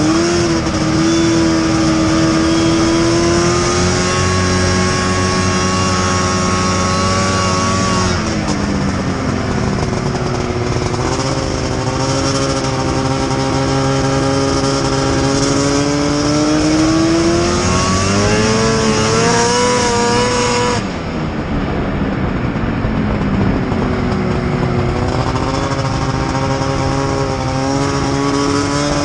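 Snowmobile engine running under throttle, its pitch rising and falling with speed. The pitch sags about eight seconds in, climbs steadily, then drops sharply about two-thirds through as the throttle is let off, before building again near the end.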